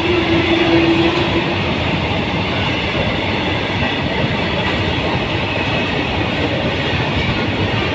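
Freight train's covered goods wagons rushing past at speed: a loud, even rumble and rattle of wheels on rail. A steady tone fades out about a second in.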